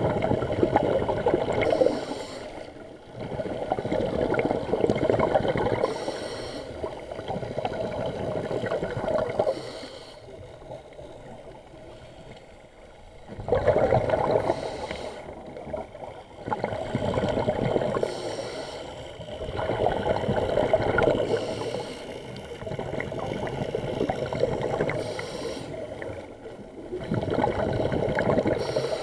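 Scuba diver's regulator exhaling, heard underwater: rushing, gurgling bursts of bubbles every three to four seconds, with a longer pause about ten seconds in.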